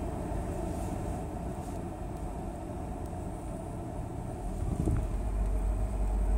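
Steady low hum inside a car's cabin, with a louder low rumble from about four and a half seconds in.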